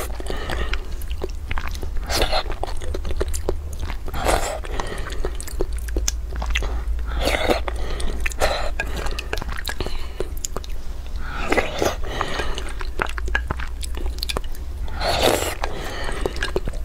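Close-miked eating sounds: wet chewing and many sharp lip-smacking clicks, with a louder slurp from the spoon every few seconds.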